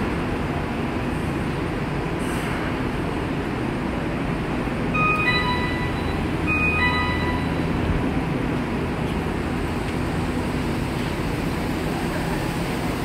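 Steady underground station noise around a stopped subway train. About five seconds in, an electronic door chime sounds twice in quick succession as the train doors and platform screen doors open.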